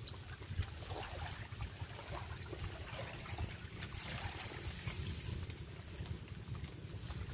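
Wind buffeting the microphone as a steady low rumble, with water lapping in the shallows.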